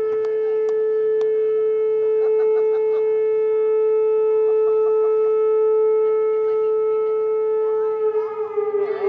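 Outdoor air raid siren sounding one steady, held tone. Its pitch starts to drop near the end as it winds down.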